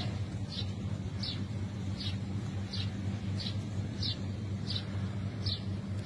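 A short high chirp repeating evenly, about three every two seconds, over a steady low hum.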